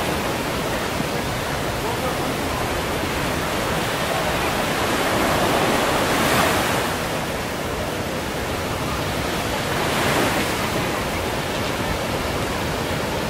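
Small surf washing onto a sandy beach: a steady rush of water with two larger swells of a wave breaking about six and ten seconds in.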